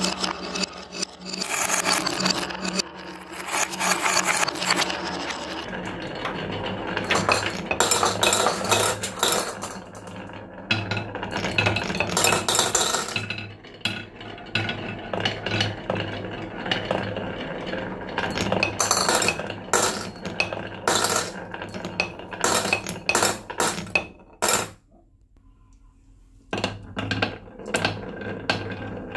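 Glass marbles rolling down a wooden wave-slope marble run: a continuous wooden rolling rattle dense with clicks and clinks as the marbles knock against the track, the blocks and each other. It drops to near silence for about two seconds near the end, then the clicking starts again.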